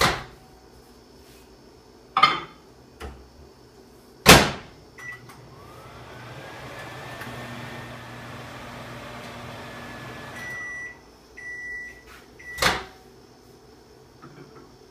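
Microwave oven heating a container of water: a few knocks and clunks, the loudest about four seconds in, then a beep and the oven runs with a steady hum for about five seconds. It stops with three beeps, followed by a sharp thump.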